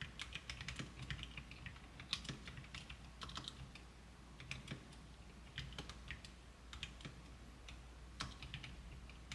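Typing on a custom mechanical keyboard with lubed Gateron White linear switches: quick runs of soft, quiet keystrokes with short pauses between them. A slight hollow case resonance and some spring noise remain, which the builder puts down to the housing and to springs he could not fully quiet.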